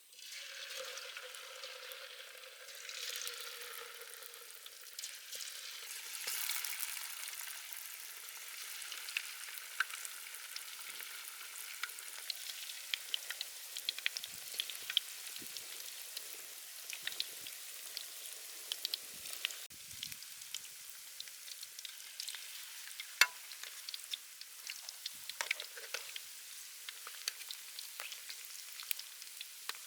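Food deep-frying in hot soybean oil: a steady sizzle with frequent crackling pops, and one sharper pop a little past the middle.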